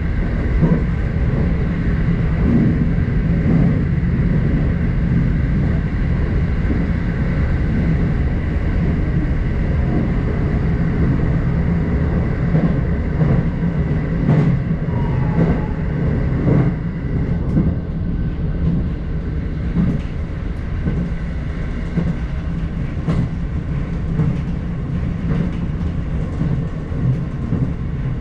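Electric train running along the line, heard from inside the front car: a steady rumble of wheels on rail with a constant high whine, and scattered sharp clicks of the wheels over rail joints in the second half.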